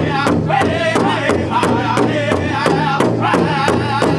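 Powwow drum group: several men singing together in a high, strong voice while striking a large shared powwow drum with drumsticks in a steady beat of about three strokes a second.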